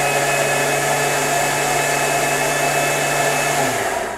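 Electric food processor (cutter) motor running steadily at full speed, puréeing gazpacho vegetables, then switched off near the end, its hum falling in pitch as it winds down.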